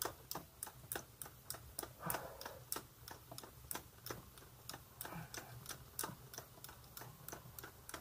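Motorcycle rear wheel spun by hand on a paddock stand, its drive chain and sprockets ticking steadily at about three to four ticks a second, with a brief brushing sound where the hand pushes the tyre round. The spinning is a check of chain slack for a tight spot.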